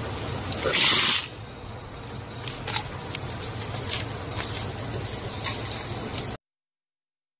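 Crested porcupine rattling its raised quills: a loud hissing rattle about a second in, then softer scattered rattling clicks, over a steady low hum. The sound cuts off suddenly near the end.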